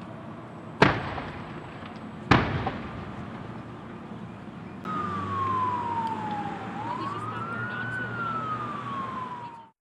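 Two loud bangs about a second and a half apart: explosions from a burning diesel tanker truck. From about five seconds in an emergency vehicle siren wails, its pitch falling, rising, then falling again.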